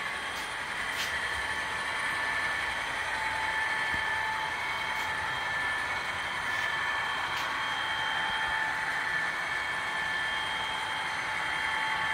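A long model railroad freight train running on the layout's track: a steady hiss of rolling cars with a high whine that swells and fades, and a few faint clicks.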